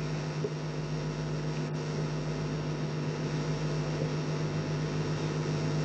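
Steady electrical mains hum in the recording, a low unbroken buzz with a hiss over it.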